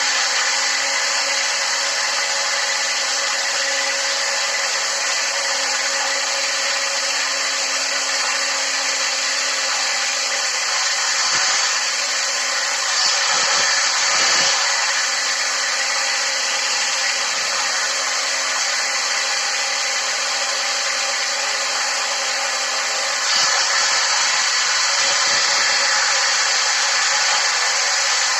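Electric drill fitted with a hole saw, running steadily with a constant motor hum under a wide whirring noise. The hum breaks off briefly a few times midway, and the sound grows somewhat louder later on.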